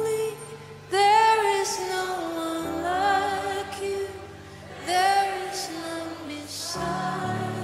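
A woman singing a slow worship song in drawn-out phrases with wavering held notes, over the band's sustained chords that change twice.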